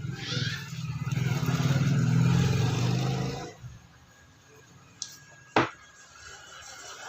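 A motor or engine running with a low buzz for about three and a half seconds, then dying away, followed a couple of seconds later by a single sharp click.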